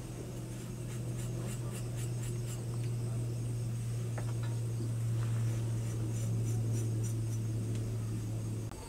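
Light scratching and small clicks of spice powder being tipped and scraped from small clay dishes onto fish in a steel bowl, clustered in the first few seconds. Under it runs a steady low hum, the loudest sound, which cuts off abruptly near the end.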